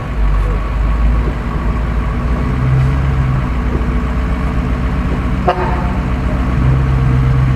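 Ford F-250 pickup's engine running steadily under load while the truck works through deep mud, with a short sharp click about five and a half seconds in.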